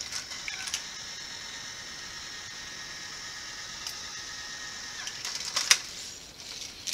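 Hot Wheels track set with a steady small-motor whine while a die-cast toy car is carried up the tower. About five seconds in, the car clatters down the plastic spiral ramps, and a sharp knock comes at the very end.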